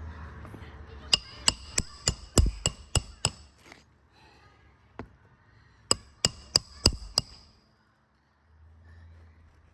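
Hammer striking on an asphalt-shingle roof during a shingle repair: a quick run of about seven sharp, ringing blows, a single blow, then five more, after which the hammering stops.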